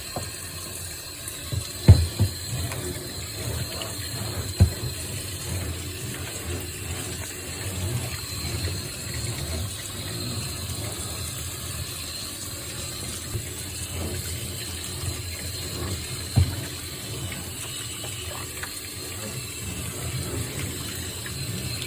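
Washing a plastic rabbit cage base with dish soap and water: steady scrubbing and sloshing, with a few sharp knocks of the cage near the start and about two-thirds of the way through.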